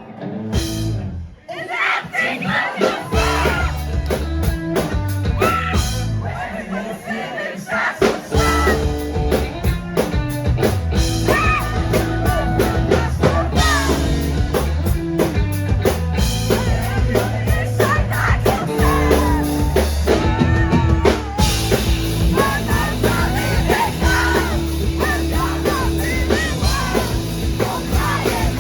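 Live rock band playing through a concert PA, with singing, drum kit and bass. The song starts about a second in, and the full band with a steady heavy bass line is in by about eight seconds.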